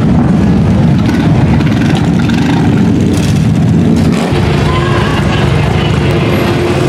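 Several big cruiser and touring motorcycle engines rumbling loudly as the bikes ride slowly past in close traffic, with the mix of engines changing about four seconds in.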